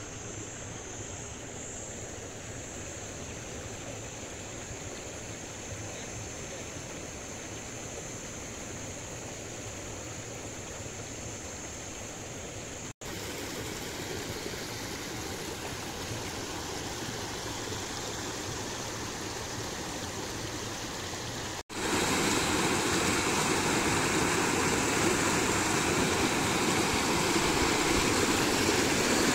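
Water rushing over a small waterfall, a steady rush of noise. It drops out for an instant twice and comes back louder each time, loudest in the last several seconds.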